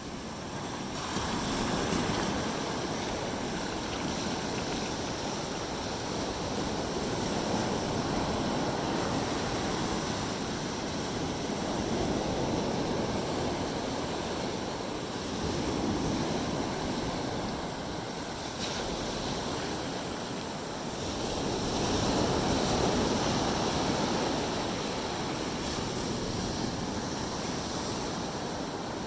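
Ocean surf washing onto a beach: a steady rushing of breaking waves that swells and eases every few seconds.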